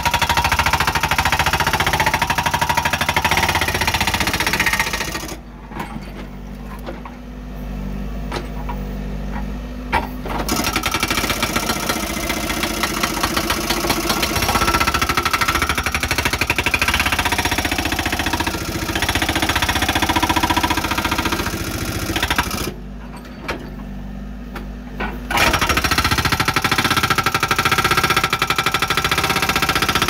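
Backhoe-mounted hydraulic breaker hammering in rapid blows over the running engine. The hammering stops twice: about five seconds in, for about five seconds, and again about 23 seconds in, for two or three seconds. In those gaps only the engine is heard.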